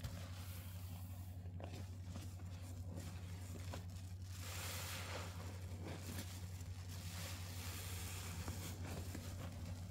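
A sponge soaked in pine cleaner and dish soap being squeezed by hand, giving several wet, hissing squeezes of foam; the longest and loudest comes about halfway through. A steady low hum runs underneath.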